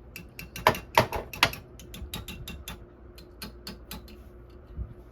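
A quick, irregular series of sharp taps and clicks from hard objects. Three loud knocks come about a second in, then lighter ticks follow for a few seconds, and a dull thump comes near the end.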